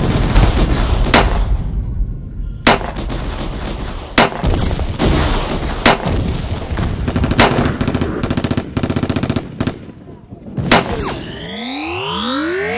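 Gunfire sound effects: rapid crackling bursts with a loud single bang about every second and a half. Near the end they give way to a rising electronic whoosh.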